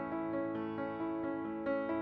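Background music: a piano introduction with sustained notes.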